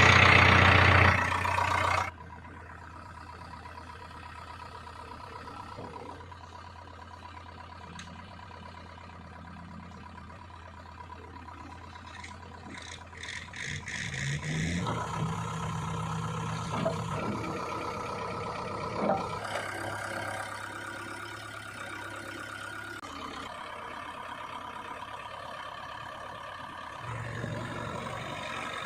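Diesel engines of a backhoe loader and farm tractors running steadily. Partway through, one engine rises in pitch and gets louder, as it does when working under load. The first two seconds hold a louder, noisy burst.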